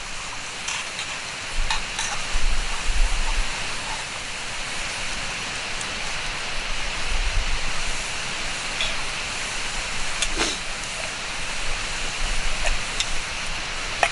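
Cooking over a wood fire: a steady sizzling hiss with scattered sharp crackles and pops.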